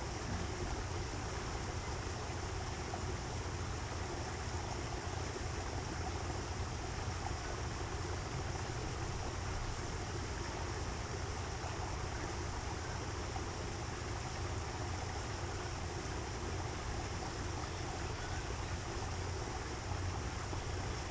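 Steady rush of running water from a small stream, with a low rumble underneath.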